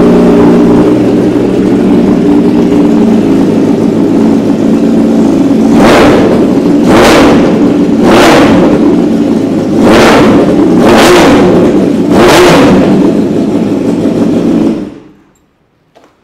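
Kawasaki ZX-10R's inline-four engine running loud through an SC Project titanium full exhaust system: it idles steadily, then is blipped six times in quick throttle revs from about six seconds in. The sound stops abruptly near the end.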